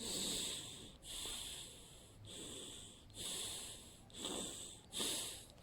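A person demonstrating breathing with six airy breaths, each just under a second long, at a steady pace of about one a second.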